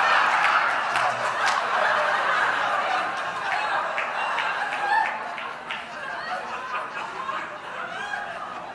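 An audience laughing, loudest at the start and dying away gradually, with a few sharp knocks scattered through it.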